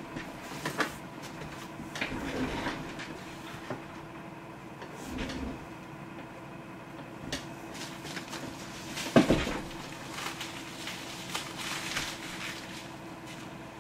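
Scattered handling knocks and clicks, with one sharper knock about nine seconds in, over a faint steady hum.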